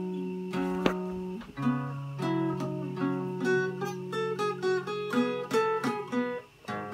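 Capoed acoustic guitar fingerpicked: a run of single plucked notes over held bass notes, with a chord change about a second and a half in. The playing drops away briefly near the end.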